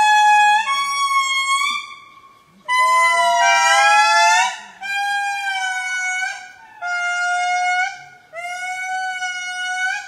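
Lemurs giving a series of long, wailing calls, each held for a second or two with a slight rise at the start, with two voices overlapping near the middle.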